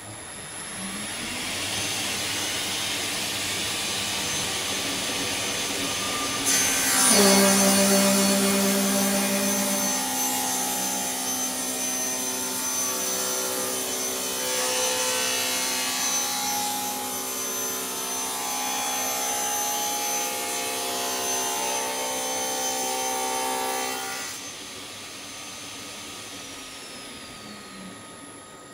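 Altendorf F45 sliding table panel saw running, then ripping a long wooden board. About six seconds in, the blade enters the wood and the sound jumps to a loud, steady pitched cutting sound with several tones in it. It holds until about three-quarters of the way through, then drops back to the saw running free.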